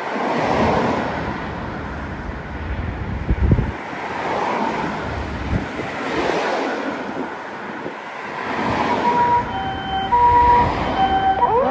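Road traffic noise swelling and fading as vehicles pass, then from about nine and a half seconds in an ambulance's two-tone hi-lo siren starts, alternating between a higher and a lower tone.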